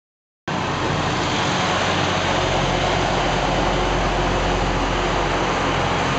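Loram rail grinder train rolling past, its diesel engines giving a steady low hum under a loud, even rumble of wheels on rail. The sound cuts in abruptly about half a second in.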